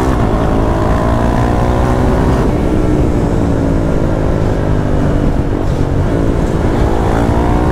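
Decatted KTM Duke 390's single-cylinder engine, running through the stock exhaust with the DB killer removed, heard from the bike while riding. The pitch drops as the throttle closes at the start, holds fairly steady, then climbs again near the end as it accelerates.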